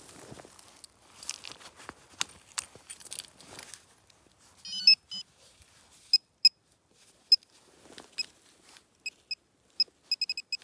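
Rustling and scraping of digging in leaf litter and soil, then a metal detector giving about a dozen short, high beeps as it pinpoints a shallow buried metal target. The beeps come closer together near the end.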